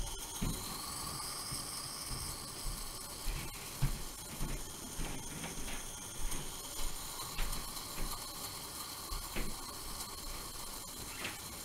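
Soft fizzing of a carbonate sample reacting with hydrochloric acid as drops fall in from a plastic pipette, giving off carbon dioxide. Irregular soft low bumps and faint clicks come about once a second.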